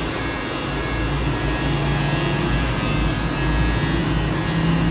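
Electric hair clippers buzzing steadily as they cut the hair at the side of a man's head.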